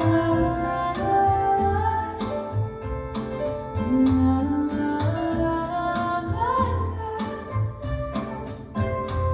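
A recorded song playing back through KEF LS50 Meta bookshelf speakers: a melody of long notes that glide from one pitch to the next, over a bass line and a regular light beat.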